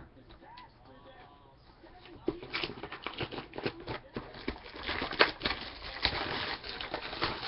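Crackling and clicking of a trading-card mini box and its packaging being handled and opened. It starts about two seconds in and is dense and irregular.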